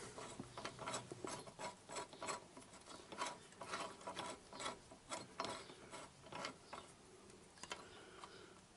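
Faint irregular metallic clicks and light scraping of a bolt and nut being fitted by hand to a motorcycle crash bar mount on the engine frame.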